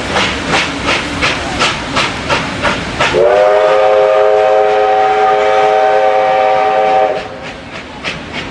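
Steam locomotive pulling away, its exhaust chuffing about three beats a second. About three seconds in, a long chime whistle of several tones together sounds for about four seconds and cuts off, leaving the exhaust beats fainter near the end.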